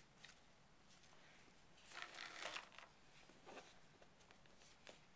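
Near silence with faint handling noise from a plastic fashion doll being moved by hand: a brief rustle about two seconds in and a few light clicks.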